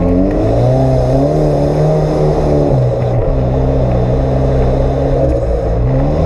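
Off-road 4x4's engine running hard on a muddy track, its pitch rising just after the start, dropping about three seconds in, then rising again near the end as the throttle and gears change.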